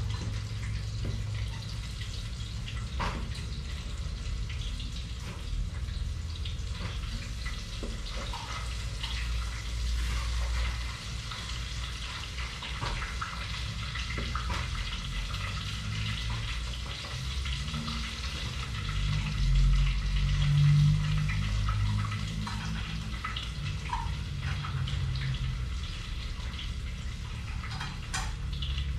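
Tap water running into a sink while dishes are washed, with occasional short clinks of dishware.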